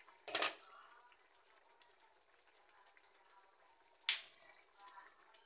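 Chicken afritada simmering in a pan with a faint bubbling hiss, broken by a sharp clink about half a second in and another about four seconds in.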